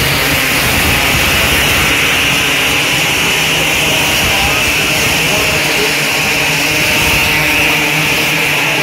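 A pack of 270 micro sprint cars racing on a dirt oval, their single-cylinder four-stroke engines running hard together in a loud, steady drone.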